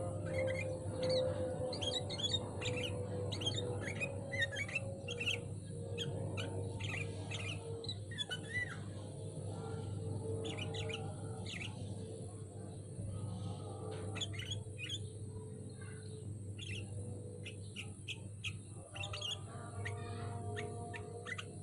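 Sooty-headed bulbuls singing, a dense run of quick, overlapping chirps and short trills, over a steady low hum.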